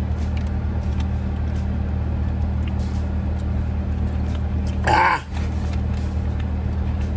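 Steady low hum of a car idling, heard from inside the cabin, with a few faint clicks. A short, loud "Ah!" exclamation comes about five seconds in.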